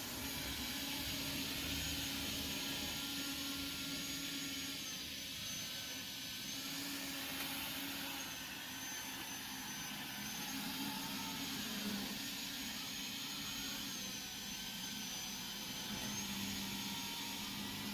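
Robot vacuum running on a shag rug: a steady fan hiss with a high motor whine that dips in pitch and comes back up several times, over a low hum.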